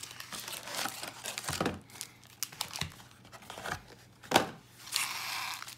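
Foil Magic: The Gathering Jumpstart booster packs crinkling as they are handled and set down, with a louder crackle about four seconds in and a longer rustle near the end.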